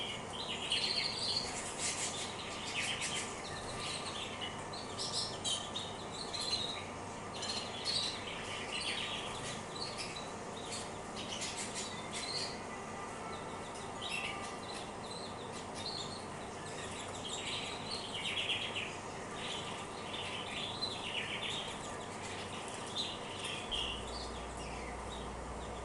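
Female canaries chirping and calling, many short high notes in irregular bursts, some overlapping.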